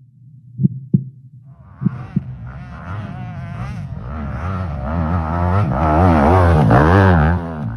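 Motocross bike engine revving up and down as the bike comes closer, growing steadily louder, its pitch rising and falling with the throttle. A few low thumps in the first two seconds.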